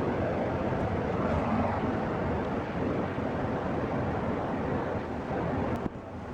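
Gas furnace blower fan running with a steady rushing hum after the burners were shut off over orange, unsafe flames. There is a sharp click near the end, after which the noise is slightly quieter.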